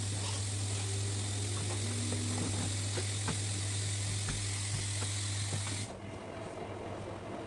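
A steady hiss over a low steady hum, with light clicks and knocks scattered through it; hiss and hum cut off together, suddenly, about six seconds in.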